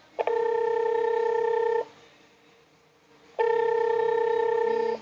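Electronic ringing tone of a Wi-Fi video doorbell calling its phone app: two steady tones, each about a second and a half long, with a pause of about the same length between them.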